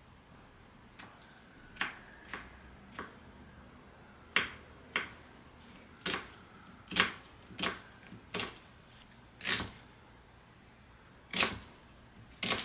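Kitchen knife chopping king oyster mushroom and onion on a wooden cutting board: irregular sharp knocks of the blade hitting the board, about fifteen, louder and closer together in the second half.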